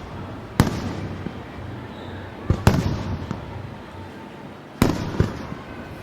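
Aerial fireworks shells bursting: about five sharp bangs, two of them in quick pairs, over a continuous rumble of more distant bursts.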